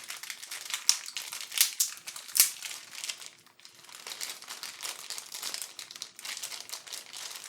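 Packaging of a soldering kit crinkling and crackling as it is opened and handled, with a few sharper, louder crackles in the first couple of seconds.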